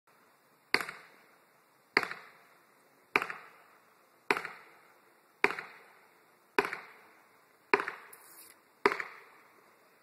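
Eight sharp, evenly spaced blows, a little over one a second, struck at the base of a tall conifer being felled, each with a short echoing decay.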